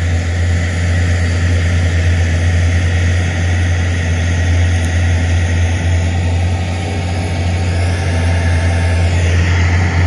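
Heavy diesel engines of dump trucks idling, a steady low drone that holds without change.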